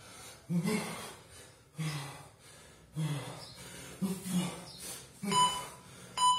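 A man's short, forceful exhalations, about one every second, paced to each kettlebell clean of a 24 kg kettlebell. This is hard breathing late in a five-minute set. Near the end, electronic timer beeps start, one a second.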